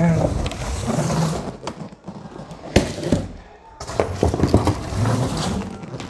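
Cardboard carton and its packing being handled as items are pulled out: rustling and scraping, with a sharp knock about three seconds in and a few more knocks a little later.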